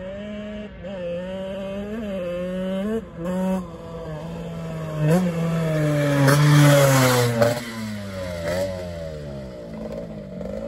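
1980 Gilera 125 twin-cylinder two-stroke motocross bike at full throttle, revving up and snapping up through the gears several times. It is loudest as it passes close by, then its pitch falls as it rides away.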